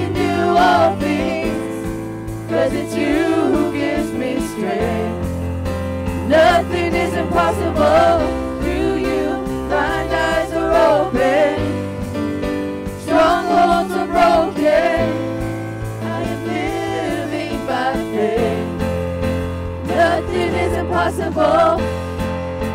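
Gospel vocal group of mixed male and female voices singing a worship song in harmony over instrumental accompaniment, with held bass notes that change every few seconds.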